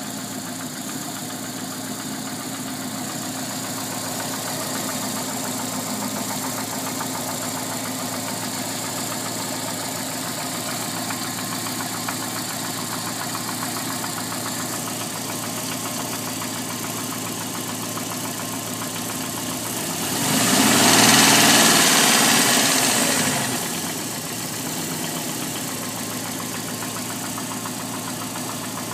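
Alfa Romeo 145's 1.6 boxer (flat-four) engine idling with a weird ticking sound. About twenty seconds in it is briefly revved, rising and falling back to idle over about three seconds.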